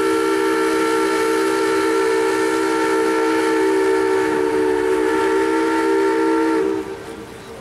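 Steam whistle of the paddle steamer Krippen blowing one long, steady blast, several notes sounding together as a chord. The blast cuts off sharply near the end.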